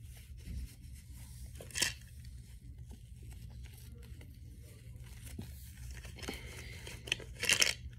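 Rustling and crinkling of small clothes being handled and folded close to the microphone, with a sharp crackle about two seconds in and louder rustles near the end.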